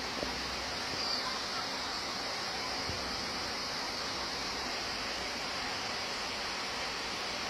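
Steady rushing of a fast mountain stream tumbling over rocks in white water, an even hiss with no breaks.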